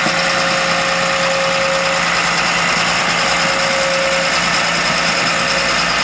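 Crawler bulldozer's diesel engine running steadily, with a constant high tone over the engine noise.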